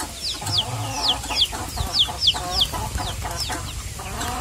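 Chickens clucking, with a run of short, high peeps that fall in pitch, about two or three a second.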